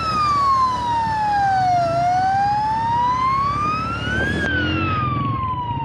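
A siren wailing slowly up and down: it falls, climbs back to a peak about four seconds in, then falls again. Underneath runs a low, steady engine rumble from the motorcycle ride.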